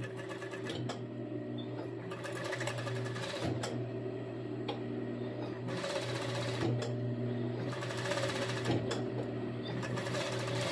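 Industrial sewing machine with a binding attachment sewing tape onto swimsuit fabric in several short runs, its motor humming steadily underneath.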